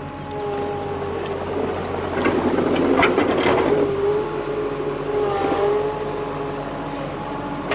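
Construction machine's diesel engine running steadily, with a louder, rougher rush of noise between about two and four seconds in as the machine works under load.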